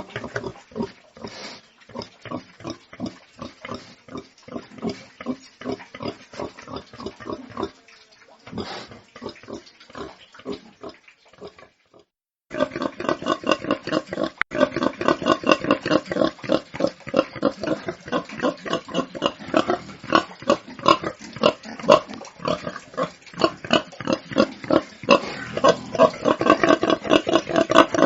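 Domestic pigs grunting in quick, rapid succession, several grunts a second. There is a brief break about twelve seconds in, after which the grunting comes back louder and denser.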